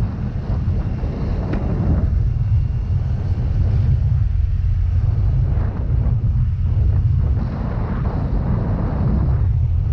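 Wind buffeting the microphone over the running engine of a moving Yamaha Mio Gravis scooter, a dense low rumble that swells and dips unevenly.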